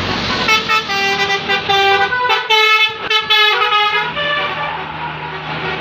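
A bus's basuri-type 'telolet' musical air horn playing a quick tune of short tooting notes that step up and down in pitch, from about half a second in until about four seconds, over road noise. After the tune, a steady low engine drone.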